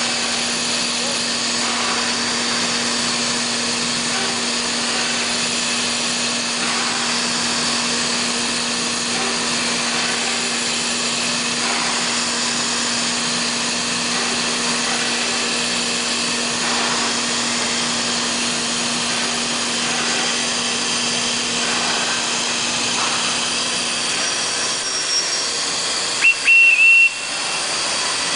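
CNC wood machining centre running while it machines a solid wood door: a steady hiss and whir with a steady low hum. Near the end the hum fades and there is a brief high whistle with a few short, louder bursts.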